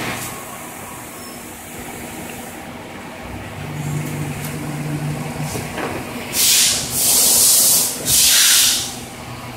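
Industrial inkjet printer and its conveyor running with a steady machine hum, a low steady tone for about two seconds in the middle, then three loud bursts of hiss in the second half, each about a second long.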